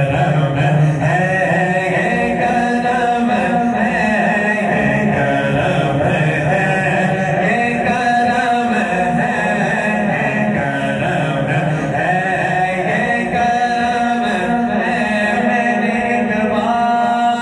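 Voices chanting devotional Islamic verse together in long, held, melismatic lines, with a steady held tone joining near the end.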